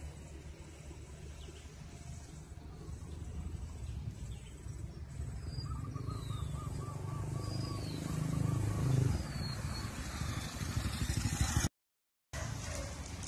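Outdoor ambience: a steady low rumble that swells around nine seconds, with a few short high chirps and a brief run of quick repeated notes midway. The sound drops out completely for about half a second near the end.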